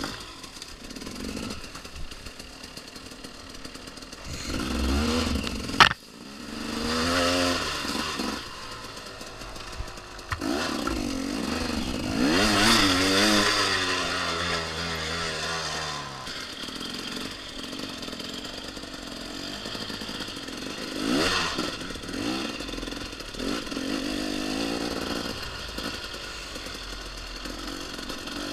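2014 KTM XC-W 250 two-stroke dirt bike engine being ridden, its pitch rising and falling several times as the throttle is opened and backed off. A single sharp knock about six seconds in is the loudest moment.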